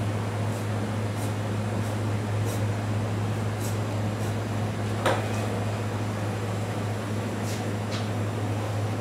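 Steady low machine hum under faint, scattered ticks of a knife skinning a crocodile's hide on a stainless steel table, with one sharp knock about five seconds in.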